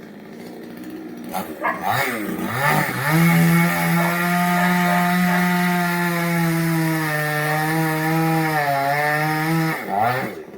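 Chainsaw revved up in a few quick blips, then held at full throttle cutting through wood for about seven seconds, its pitch sagging slightly under load near the end. It is then let back down toward idle.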